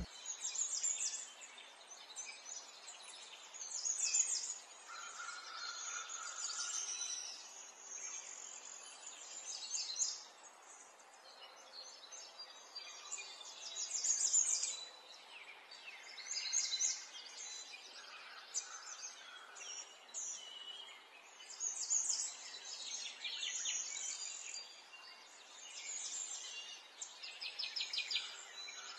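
Birds chirping and trilling in short high bursts every second or two, with a couple of longer steady whistles.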